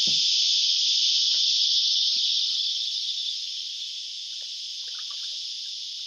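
Chorus of cicadas: a loud, steady, high-pitched drone that eases somewhat about halfway through.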